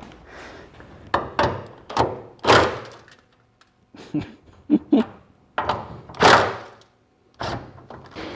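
A string of short metal knocks and rasping scrapes, about eight in all with pauses between them, from a 13 mm spanner working the bonnet bolts of a Volkswagen Beetle.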